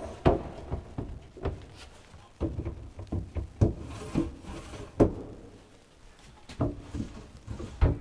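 Wooden cabinet drawers being lifted, slid open and pushed shut, scraping along their runners and knocking about eight times as each drawer rides over and drops behind a small wooden stop, the passive drawer lock.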